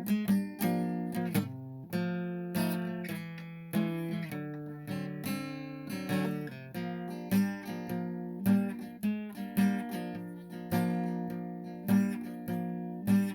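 Background music: acoustic guitar, plucked and strummed chords in a steady rhythm.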